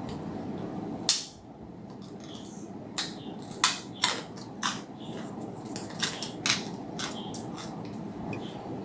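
Eating sounds from a plate of fried flat rice noodles with vegetables: about eight sharp clicks and crunches spread over several seconds, over a steady low background noise.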